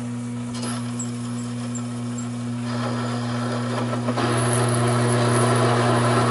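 Taig micro lathe, driven by a Sherline motor, humming steadily while a parting blade is fed into a 1-inch bar of 1018 steel to part it off. The cutting noise grows louder about three seconds in and again about four seconds in as the blade bites deeper under steady feed.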